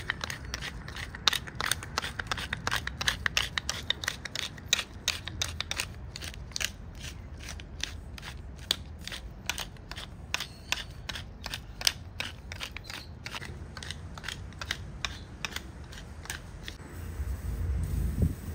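Hand-twisted wooden spice mill grinding seasoning: a fast, continuous run of crunching clicks from the grinding mechanism. The clicking stops shortly before the end, giving way to a low rumble.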